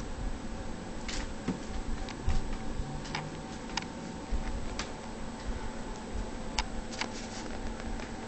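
A dozen or so small sharp clicks and ticks at uneven intervals, over a low steady hum and faint low rumble.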